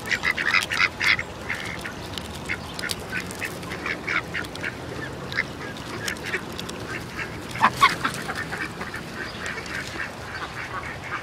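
Ducks feeding at close range: short, quiet quacks and chatter as they peck at food, a quick flurry in the first second and scattered calls after, with one louder call about eight seconds in.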